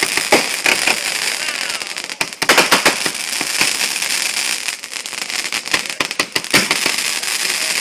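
Fireworks going off in quick succession: a dense, continuous crackling broken by many sharp pops and bangs, with a cluster of louder bangs about a third of the way in.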